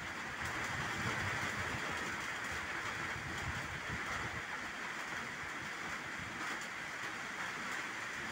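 Heavy rain falling steadily on open water and leaves: an even hiss, with a low rumble underneath in the first few seconds.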